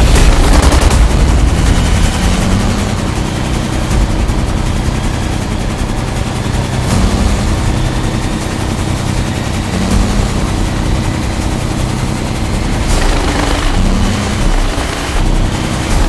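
Loud, unbroken noise of wood-processing machinery: a chainsaw cutting a log and a tracked wood chipper's four-cylinder Kubota diesel running while it chips wood, with a rapid flurry of sharp impacts in the first second.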